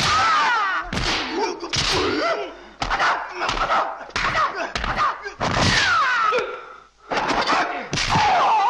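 Kung fu film fight soundtrack: Bruce Lee's high-pitched battle cries, several yells that bend and fall in pitch, mixed with dubbed punch and kick impact effects.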